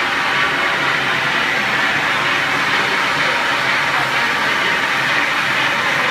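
Heavy roll-turning lathe running, a steady even hiss and hum of the machine at work with no pauses or changes.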